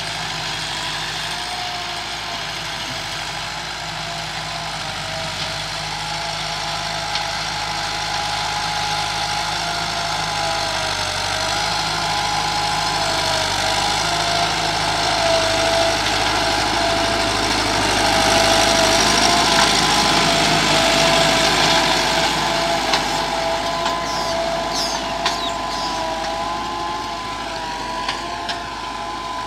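Massey Ferguson 385 tractor's diesel engine running steadily under load while pulling an 11-tine cultivator through soil, growing louder toward the middle as the tractor comes close. A few short sharp clicks near the end.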